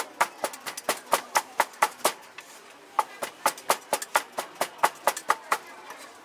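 Two cleavers chopping minced meat and green peppers on a round chopping block: rapid, even knocks of about four or five strokes a second, with a brief pause a little past two seconds in before the chopping resumes.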